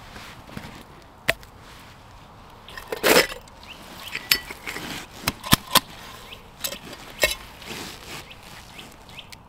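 Metal camping cookware being handled: a lid pulled off a small pot and small metal pieces set down, giving several sharp clinks and taps, with a longer scraping rustle about three seconds in.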